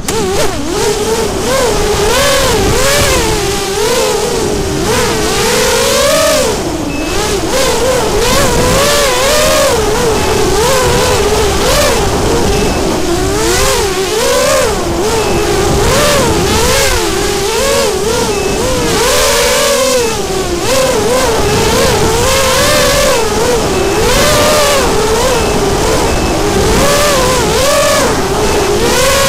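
FPV racing quadcopter's brushless motors and propellers whining, the pitch rising and falling continually with the throttle, over a hiss of propeller and air noise, as heard from the drone's own onboard camera.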